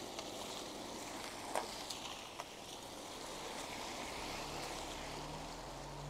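An SUV drives past on the wet road, its tyres hissing on the wet asphalt and swelling to their loudest a few seconds in, with a low engine hum as it goes by. A few sharp clicks sound in the first half, the loudest about a second and a half in.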